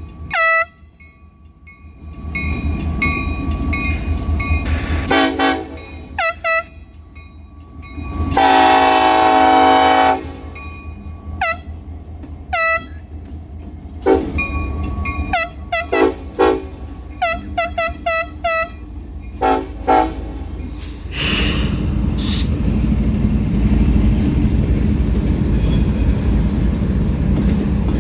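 Union Pacific freight locomotive's air horn playing a horn show: a few blasts, one long blast about eight seconds in, then a rapid string of short toots, each sagging in pitch as it cuts off. A diesel locomotive rumbles underneath, and from about twenty seconds in the steady rumble of the passing freight train takes over.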